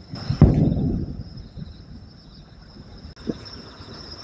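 Aerial firework shell bursting: a deep boom about half a second in that rolls away over about a second, then a smaller thump near the end. Insects trill steadily underneath.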